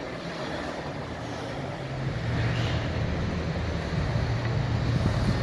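Road traffic passing close by, with a vehicle engine's low drone that grows louder about two seconds in.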